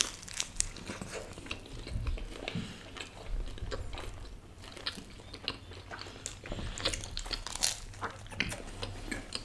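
Two people biting into and chewing pizza slices, with crunches of crust and many irregular small clicks and crackles of chewing.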